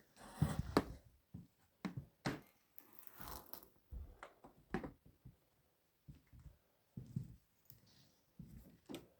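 Irregular rustling and scraping with scattered small knocks and clicks, the longer rustles near the start and about three seconds in.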